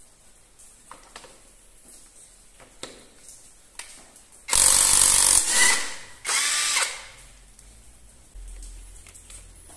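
Cordless power tool motor run in two short bursts: one of about a second and a half that winds down, then after a short pause a second of about half a second. Light handling clicks come before the bursts.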